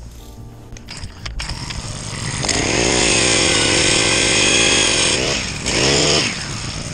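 Eskimo propane ice auger's four-stroke engine running low, then revved up about a second and a half in and held at speed. Near the end it eases off, gives one more brief rev, and drops back to a lower speed.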